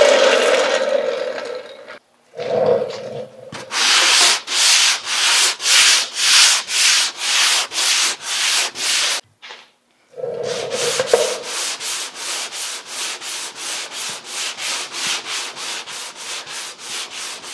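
Sandpaper rubbing over cured body filler on a car's front bumper in quick back-and-forth strokes, about two to three a second, with a short pause about nine seconds in.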